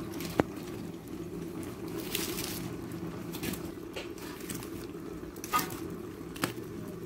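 Wood fire burning under a covered pot on a clay stove, with a steady low rush and a few sharp crackling pops, one of them near the start and two more near the end.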